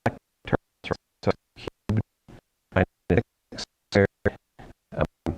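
A lecturer's voice chopped into short fragments, about three or four a second, with dead silence between them: the recording's audio is breaking up and dropping out, so no words come through.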